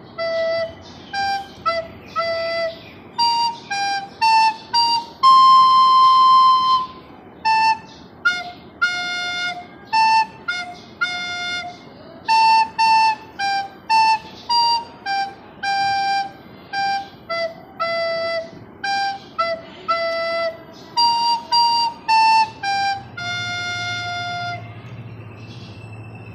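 A flute-like wind instrument playing a single melody line of short separate notes, with one long held note about six seconds in and another held note near the end.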